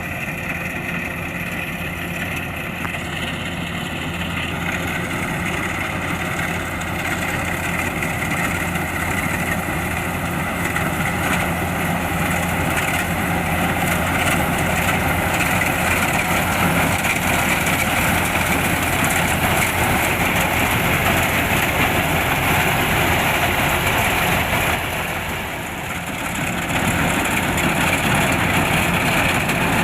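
Kubota rice combine harvester's diesel engine running steadily with the clatter of its harvesting machinery, with a brief dip in loudness about 25 seconds in.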